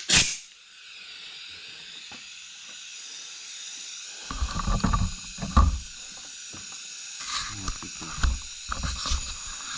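Compressed-air blow gun hissing steadily as air is blown under a dirt bike's rubber handlebar grip to loosen it, starting with a sharp burst of air. From about four seconds in, low bumps and rubbing as the grip is worked on the bar.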